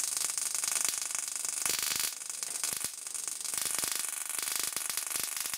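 High-voltage output of an automotive ignition coil pack charging a homemade CD-spindle capacitor and sparking. It makes a steady high-pitched crackling hiss broken by many irregular small snaps.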